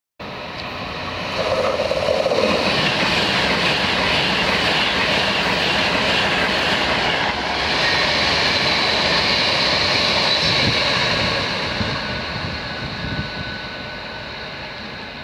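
Virgin Pendolino Class 390 electric train passing through the station at speed: a loud, steady rush of wheels on rail and air, building over the first second or two and fading over the last few seconds.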